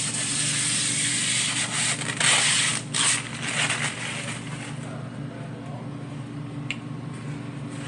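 Rustling and scraping from hands working on the plastic casing of a wall-mounted ductless mini-split indoor unit, strongest in the first three seconds, with a faint click near the end, over a steady machinery hum.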